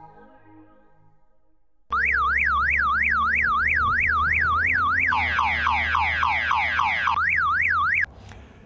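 Car alarm sounding, starting suddenly about two seconds in: a fast up-and-down warble, switching partway through to a rapid run of falling chirps, then back to the warble before it cuts off abruptly. Faint music is heard before it starts.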